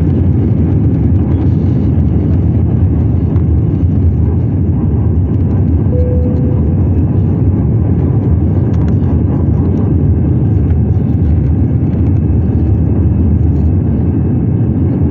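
An Airbus A320-200's engines at takeoff thrust, heard inside the cabin during the initial climb: a steady, loud rumble weighted low. A brief clear tone sounds about six seconds in.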